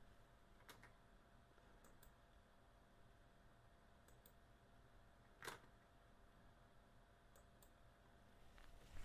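Near silence broken by a few faint computer mouse-button clicks, several in quick pairs, the loudest about halfway through.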